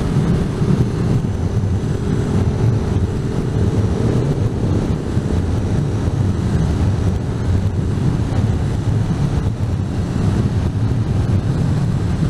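Wind buffeting the microphone of a camera on a moving motorcycle, with the KTM Super Duke's V-twin engine droning faintly underneath in third gear.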